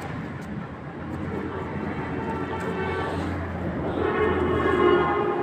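A steady mechanical drone from an engine or motor, with a pitched hum that swells louder from about four seconds in.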